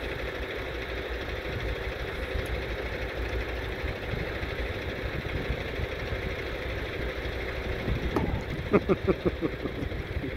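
Diesel engine of a milk tanker truck idling steadily. A quick series of about six sharp clicks comes near the end.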